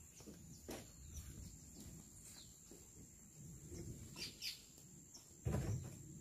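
Faint scattered bird chirps, with a dull thump about five and a half seconds in.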